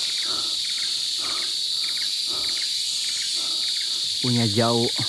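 Evening chorus of tropical forest insects: a steady high-pitched drone, with a fainter chirp repeating a couple of times a second underneath.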